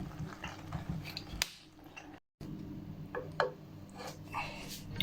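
A spoon clicking and scraping against a pan as pasta is stirred into a thick white sauce, in short irregular strokes over a low steady hum. The sound cuts out for a moment about two seconds in.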